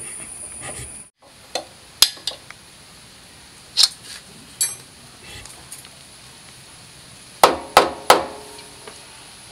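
Hammer blows on metal at the motorcycle engine's alternator rotor, knocking the rotor magnet loose from the crankshaft. A few spaced sharp knocks come first, then three in quick succession near the end, with a short metallic ring.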